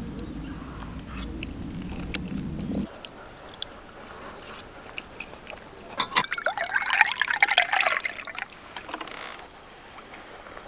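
Water poured from a plastic bottle into a mug, a loud gurgling pour lasting about two seconds past the middle, with a few light clicks and knocks around it and a low rumble in the first three seconds.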